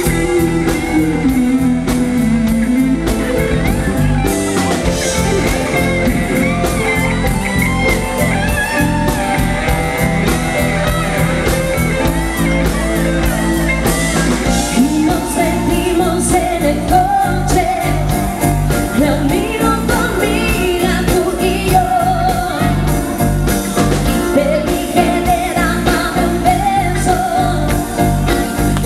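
Live pop-rock band playing: a woman sings lead over electric guitar, bass guitar, keyboard and drums.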